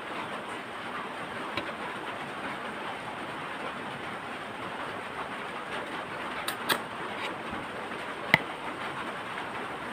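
Steady rushing background noise with a few sharp clicks and cracks from cooked shrimp shells being peeled and chewed by hand, the loudest crack about eight seconds in.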